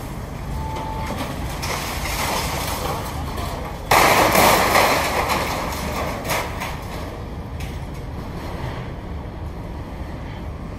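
Building demolition: a steady low rumble of diesel machinery, then about four seconds in a sudden loud crash of masonry rubble falling and clattering down, dying away over about two seconds with a smaller knock soon after.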